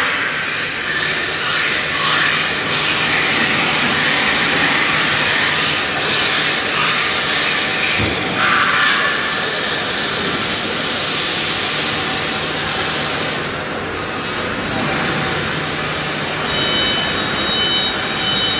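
5-axis CNC router spindle running and cutting a foam block: a loud, steady whir over a low hum that swells and eases a little as the head moves around the work.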